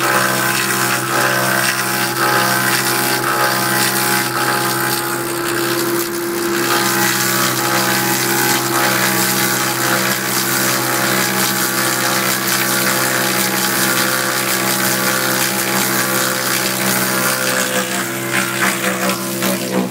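Log lathe's notching/smoothing cutter head running steadily as it shaves a log cabin log, a constant machine drone with a hiss of cutting.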